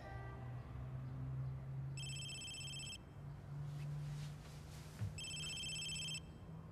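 A telephone ringing twice with an electronic ring, each ring about a second long and about three seconds apart, over a low steady hum.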